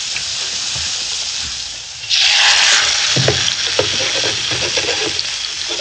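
Butter frying in a pan with a steady sizzle. About two seconds in, meat goes into the hot fat and the sizzle jumps suddenly louder, then carries on with a few light knocks.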